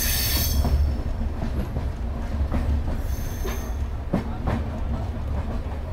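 Indian Railways passenger train rolling along a station platform: a steady low rumble, with a few sharp clacks of the wheels over rail joints late on and a brief high squeal about three seconds in.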